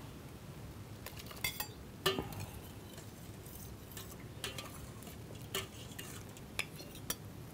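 A metal ladle clinking and scraping against a steel pot of boiling water as shrimp are stirred while being blanched. There are a handful of light, irregular knocks over a low steady background.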